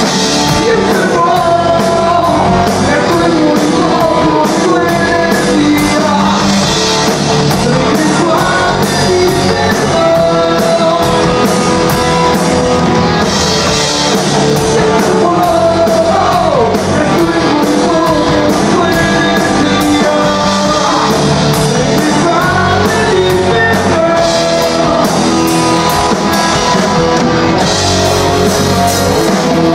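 A rock band playing live: electric guitars, bass and a drum kit with cymbal hits, with a male singer singing into the microphone.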